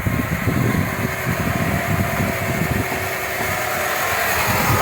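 Car engine idling under the hood with an accessory-drive noise over it, a faint steady whine above the rumble. The mechanic puts the alternator down as the main suspect.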